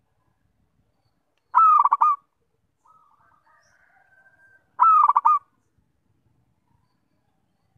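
Zebra dove (perkutut) singing: two short phrases of rapid, staccato cooing notes, about three seconds apart.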